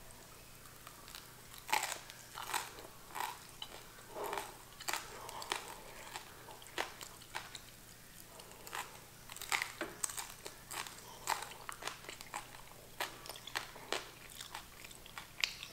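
Crunchy bites and chewing of oil-free toasted rice crust (nurungji), a string of sharp, irregular crunches.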